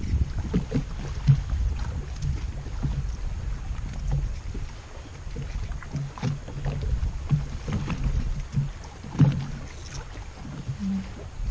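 Wind buffeting the microphone and small waves lapping against the side of a small boat, a steady low rumble with irregular soft thuds and a few light knocks.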